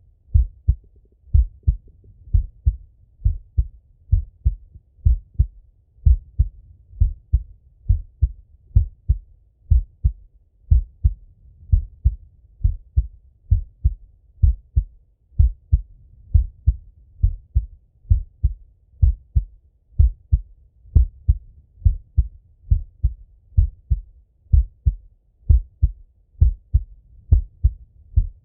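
A man's heartbeat heard through a stethoscope: steady, regular lub-dub beats, dull and low.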